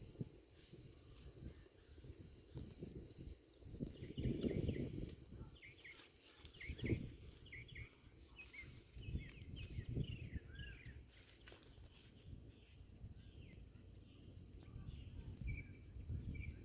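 Small birds chirping faintly: short high chirps repeating through the whole stretch, with busier, warbling calls from about four seconds in to about eleven, over a low rumbling background noise.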